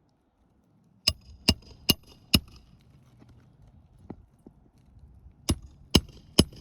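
Hammer striking roofing nails through a shingle: a run of four sharp metallic blows about two and a half a second, a pause, then three more near the end.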